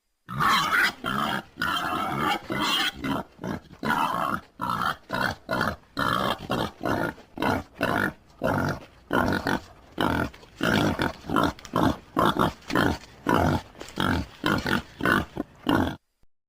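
Wild boar grunting over and over, short rough grunts at about two a second, stopping short just before the end.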